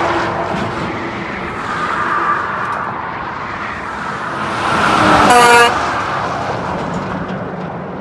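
Heavy trucks passing close on a highway with engine and tyre noise. About five seconds in, as a truck goes by at its loudest, there is a single short truck horn blast of about half a second.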